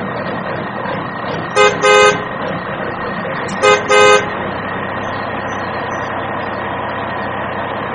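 Steady vehicle engine sound, likely a dubbed-in effect, with a horn honking twice in quick double toots (a short beep then a longer one), about a second and a half in and again about three and a half seconds in.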